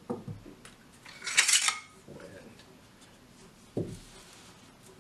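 Steel shotgun parts being handled and set down on a table: a few light knocks, a loud metallic clatter about a second and a half in, and a single duller knock near the end.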